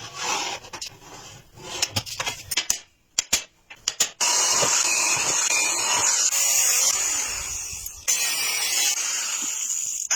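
Woodworking sounds: short scrapes and knocks for the first few seconds, then a power tool starts about four seconds in and runs with a steady high hiss.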